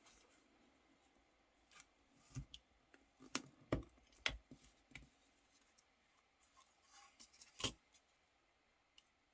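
Nokia 3310 phone parts being handled during disassembly: a quick run of sharp clicks and taps, then a single loud click near the end.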